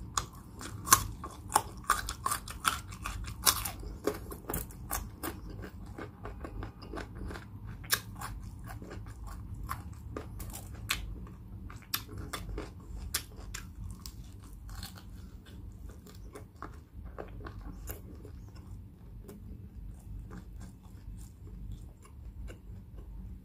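A person chewing food close to the microphone, with crunchy bites and wet mouth clicks. The clicks are densest in the first four seconds and thin out after.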